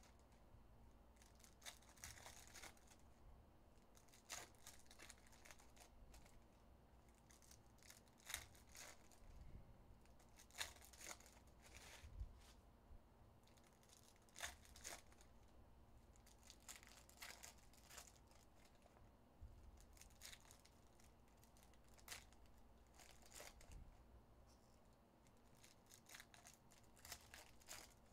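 Foil trading-card pack wrappers being torn open and crinkled by hand, with cards handled between them: faint, irregular crackles and short tearing snaps scattered every second or two.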